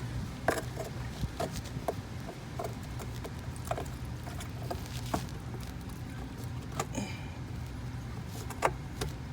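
Scattered clicks and light knocks of parts and tools being handled, with a short high squeak about seven seconds in, over a steady low hum.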